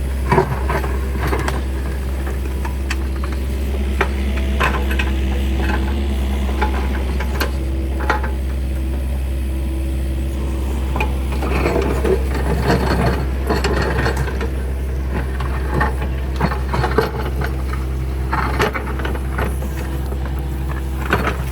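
Kubota KX030 mini excavator's diesel engine running steadily, with irregular knocks and rattles of the bucket and machine working dirt and rocks.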